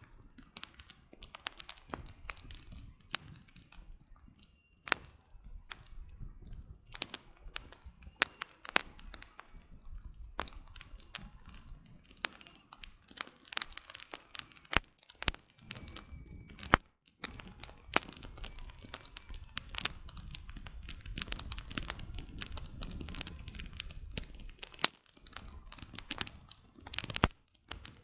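Campfire burning, firewood crackling and popping irregularly over a low rumble of flames.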